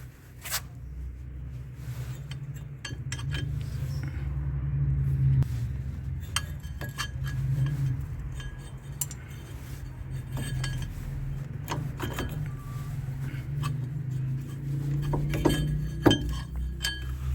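Metal clinking and clicking as tools and brake caliper parts are handled while the caliper bolt is undone: scattered sharp clinks, some ringing briefly, more of them near the end, over a steady low rumble.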